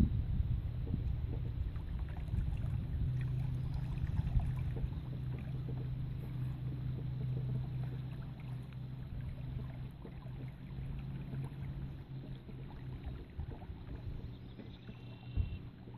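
Small electric inboard motor of a homemade plywood boat running with a low steady hum that grows fainter as the boat moves off across the water. A brief thump near the end.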